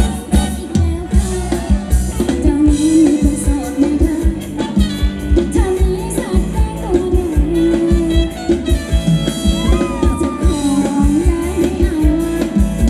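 Live band playing upbeat Thai ramwong dance music, a steady drum beat under a wavering sung melody.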